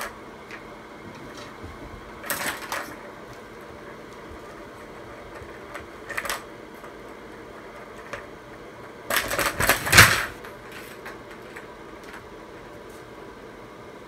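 Plastic balls clattering and rolling in the tracks of a tower-of-tracks cat toy as a kitten bats at it. The clattering comes in three bursts, the loudest and longest about nine seconds in.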